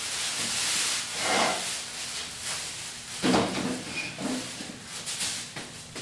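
Clear plastic wrapping crinkling and rustling in irregular bursts as a wrapped microwave oven is handled and turned around.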